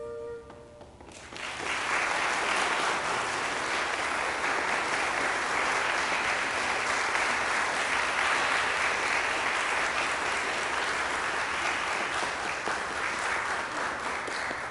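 The held final chord of a handbell choir stops within the first half-second, and an audience breaks into steady applause about a second in, which dies away at the very end.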